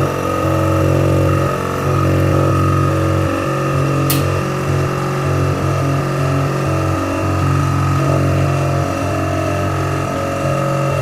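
Vacuum pump of a packaging leak tester running steadily, drawing vacuum on the water-filled test jar, with a brief sharp click about four seconds in.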